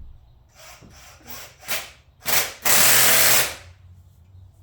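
A hand-held power tool run in three short bursts, the last and loudest about a second long.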